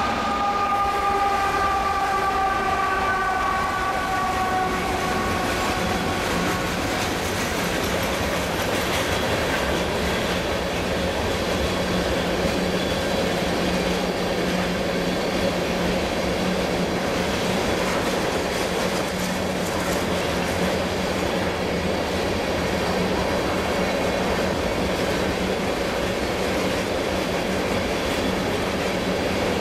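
Norfolk Southern freight train led by GE ES44AC heritage unit 8025 passing close by. A pitched tone from the passing locomotives falls slightly in pitch and fades over the first several seconds. Then a long string of tank cars rolls past with a steady rumble of wheels on rail and a low hum.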